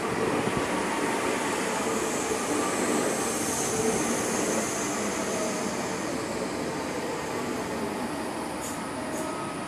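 Hamburg U-Bahn electric train rolling along the platform: steady wheel and running noise with a faint high hiss, easing slightly toward the end. Two short high clicks near the end.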